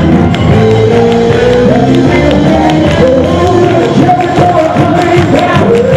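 Live gospel praise-break music from a worship band: drums, electric guitar and keyboard playing with singers' voices over a congregation.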